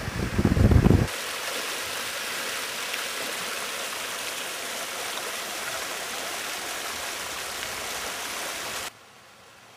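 Shallow mountain stream running over stones: a steady, even rushing splash. For the first second, gusty low rumbling hits the microphone, and the water sound drops sharply to a faint hush near the end.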